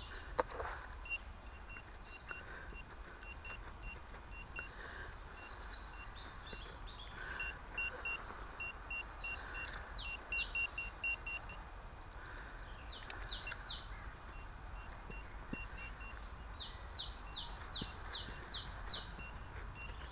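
Runs of short, evenly spaced electronic beeps, quicker in places, typical of a pinpointer probing a dug hole for a buried metal target. Birds chirp in groups of short falling notes.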